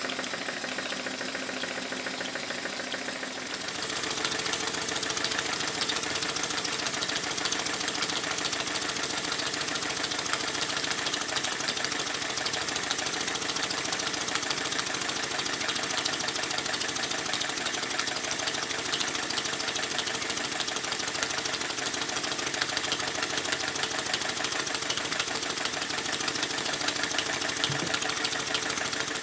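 Stuart triple expansion model steam engine running on steam: a fast, steady mechanical beat from its cranks, valve gear and exhaust, with steam hissing. It gets louder and hissier about four seconds in.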